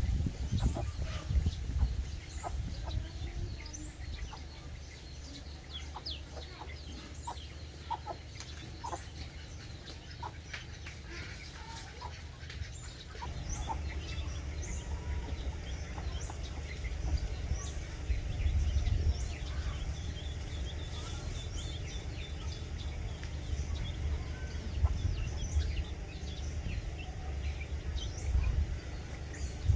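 Domestic hen clucking while her chicks peep in many short, high chirps as they forage. A steady low rumble runs underneath.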